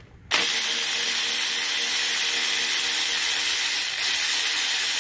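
Electric ratchet with an 8 mm socket on an extension, its motor running steadily as it backs a screw out of a scooter stator's wire brace; it starts a moment in.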